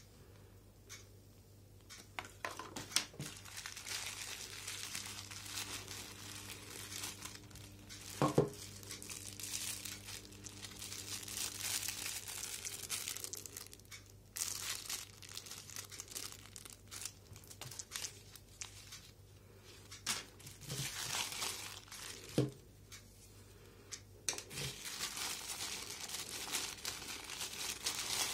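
Thin clear plastic packaging crinkling on and off as it is handled: a cellophane wrapper around a cleaning cloth and a plastic bag around a monocular, with a few short knocks in between.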